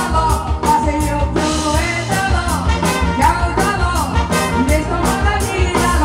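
Live band playing an upbeat tune on drum kit and keyboard, with a steady quick beat, while a woman sings into a microphone over it.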